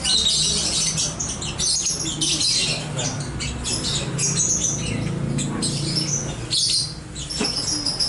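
Many caged lovebirds chirping and squawking at once: a dense, high-pitched, irregular chatter.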